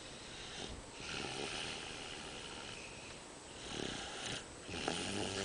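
A sleeping toddler snoring: slow, noisy breaths about every one and a half to two seconds, the later ones with a low rattle.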